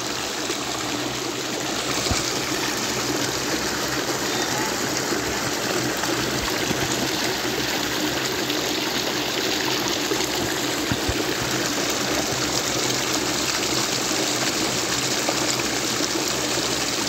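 Fast-flowing, foaming water rushing steadily past a concrete edge.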